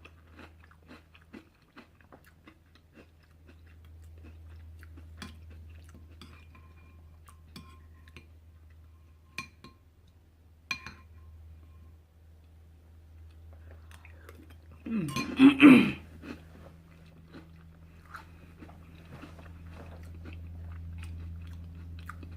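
A person chewing and crunching a mouthful of chunky soup with croutons, with scattered light clicks. About fifteen seconds in there is one brief loud sound from the throat.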